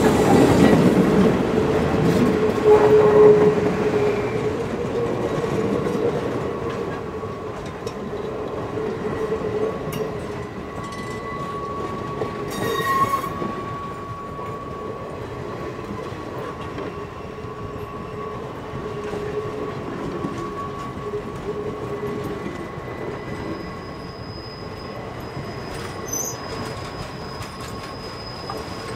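Passenger coaches of a steam-hauled train rolling past, their steel wheels clicking over the rail joints with a steady high squeal from the wheels. It is loudest at the start, as the locomotive's tender goes by, and eases off within about ten seconds.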